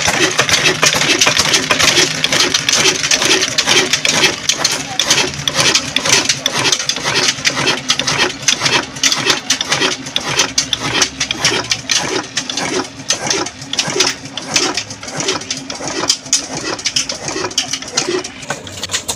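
Old 22 hp horizontal diesel engine with a big flywheel running steadily at about 300 rpm, belt-driving a tube-well pump. It has an even, repeating beat with a metallic clatter over it.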